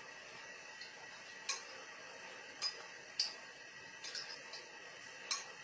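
Sharp light clicks, six or seven of them at irregular intervals, over a steady faint hiss.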